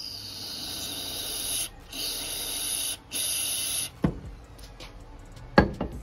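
Aerosol carburetor cleaner sprayed through its straw into a generator carburetor's clogged main jet: three bursts of steady hiss over about four seconds. Then a few sharp knocks, the loudest near the end.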